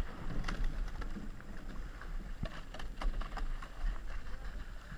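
Racing eight gliding with the crew easing off after the finish sprint: water rushing and splashing around the hull and oar blades, with scattered light knocks at irregular times and wind rumbling on the microphone.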